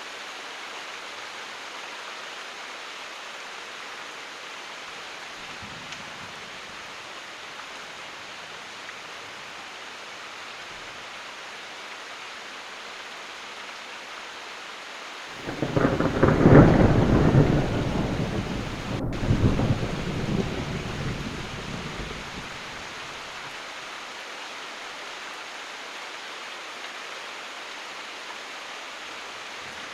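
Steady heavy rain, with one loud thunderclap about halfway through: a sudden deep rumble that swells twice and rolls away over several seconds.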